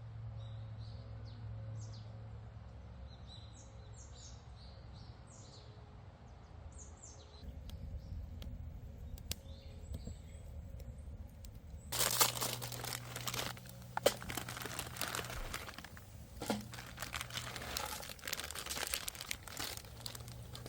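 Small birds chirping in short high calls, then from about twelve seconds in a dense, louder crackling and crunching of many sharp clicks.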